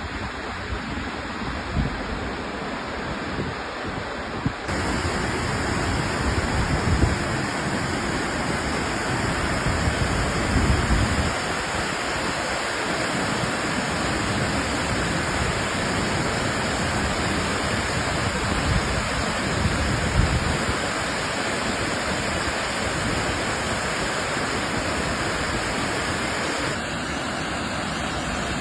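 Waterfall, water falling and rushing in a steady roar, with uneven low rumbles underneath; the sound turns abruptly brighter about five seconds in.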